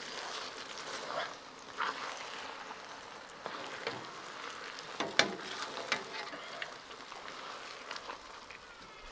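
Noodles and sauce sizzling in a wok over a fire while a metal ladle stirs them, its edge clicking and scraping against the pan about once a second.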